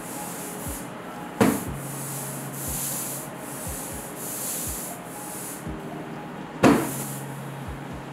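Lithography ink roller rolled back and forth through tacky ink, hissing in repeated swells with each pass. Two sharp knocks, the loudest sounds, come about a second and a half in and again near seven seconds.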